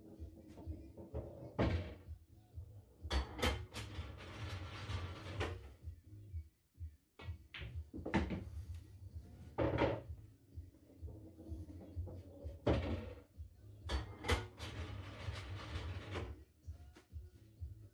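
Pool balls and cue clicking as shots are played on a pool table: a series of sharp knocks, with a rattling run lasting about two seconds after the knocks a few seconds in and again near the end.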